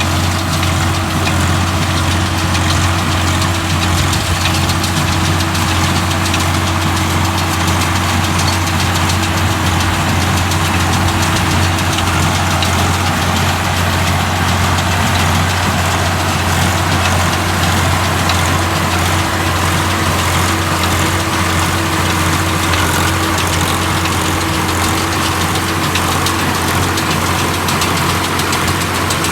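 New Holland 3630 tractor's diesel engine running steadily at a constant speed, a loud, even hum.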